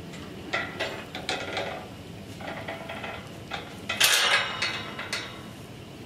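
Steel livestock panels clanking and rattling as they are moved and fitted together, in several bursts of metal knocks, the loudest about four seconds in.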